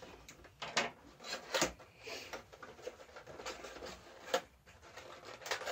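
Packaging and parts of a small collectible being handled and pulled apart: rubbing and scraping with several sharp clicks.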